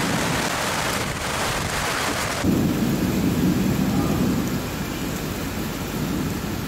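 Heavy rain in a thunderstorm, a dense steady rush with a low rumble. About two and a half seconds in it changes suddenly to a deeper, fuller rumble.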